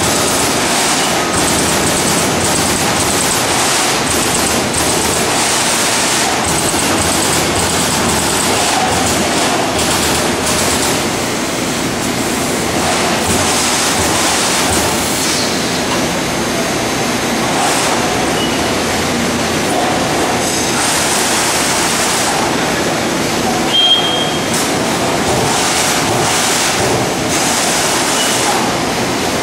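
Trumpf TC500R CNC turret punch press punching sheet steel: a loud, continuous, rapid clatter of punch strokes over the machine's running noise, with a short high chirp late on.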